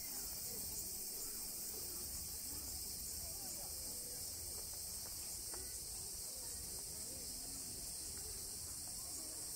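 Steady, high-pitched chorus of summer insects shrilling without a break, with faint distant voices underneath.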